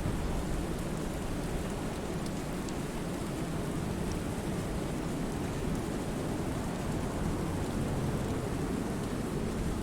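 Steady rainfall on a lake: an even, deep rush of rain with a few faint sharp drop ticks scattered through it.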